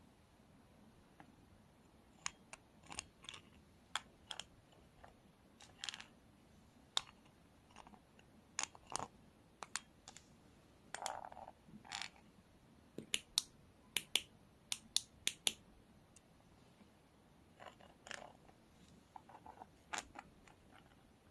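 Scattered light clicks and taps at irregular intervals, with a quick run of about seven sharp clicks a little past halfway.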